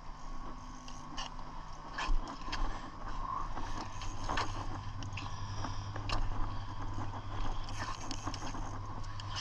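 Scattered light scrapes and knocks of a gaff pole worked at the edge of an ice-fishing hole, over a steady low hum that starts about half a second in and grows stronger around the middle.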